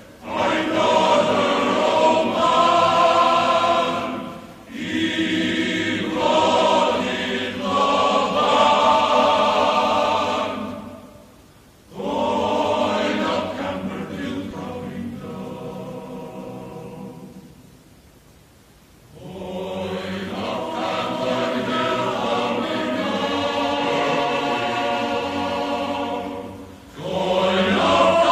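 A choir singing in long, held phrases, with brief drops in loudness between phrases.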